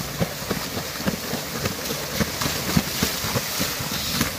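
A longfin mako shark thrashing and splashing in shallow breaking surf, the wash of the waves running throughout, with wind buffeting the microphone in irregular low thumps.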